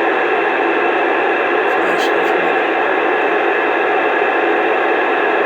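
CB radio speaker putting out a steady hiss of static while a station holds its transmitter keyed without talking.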